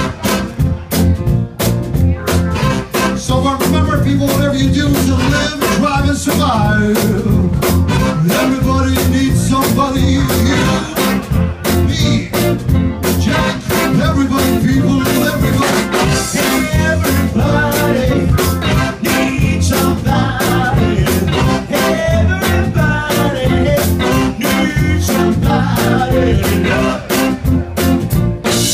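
Live blues band with a horn section, drums and keyboard playing an up-tempo number with a steady beat.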